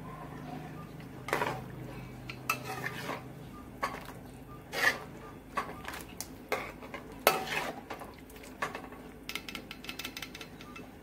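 Metal ladle scraping and clinking against a metal wok while stirring chicken livers in liquid, in irregular strokes with a few louder knocks and a quick run of light ticks near the end.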